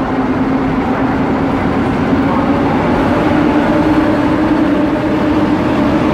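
EP07 electric locomotive hauling a train of passenger coaches past, a loud steady electric hum that rises slightly in pitch, with the coaches rolling by on the rails.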